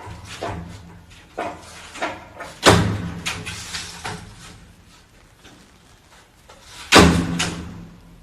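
Two loud bangs about four seconds apart, with several smaller knocks and thuds around them.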